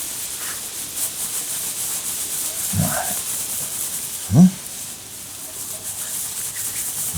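Continuous scratchy rubbing or scraping, with two short grunt-like vocal sounds about three seconds in and again about four and a half seconds in, the second one loudest.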